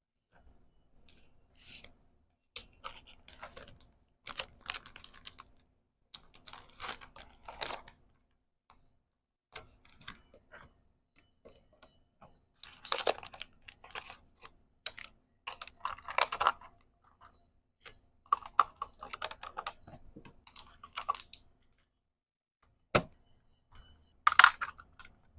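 Order-packing handling sounds: packaging rustled and crinkled in short bursts, with light taps and clicks, and one sharp click near the end.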